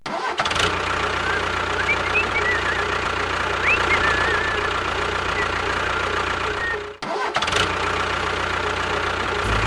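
A steady engine-like running sound that cuts out for a moment about seven seconds in, then resumes. A few faint bird-like chirps sound over it in the first half.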